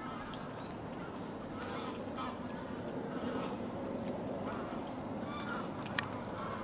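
Short animal calls, repeated at irregular intervals and far off, over a steady background hiss, with a single sharp click about six seconds in.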